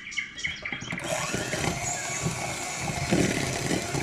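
Electric hand mixer switched on about a second in and running steadily, beating eggs, sugar and lemon into batter. Birds chirp just before it starts.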